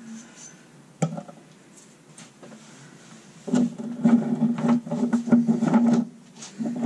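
Close handling noise: a sharp knock about a second in, then a loud stretch of rapid rubbing and knocking from about three and a half seconds to six, and a shorter burst near the end.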